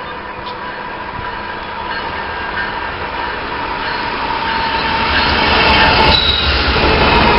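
A train approaching on the tracks, its rumble and rail noise growing steadily louder, with a thin steady high-pitched squeal running through it.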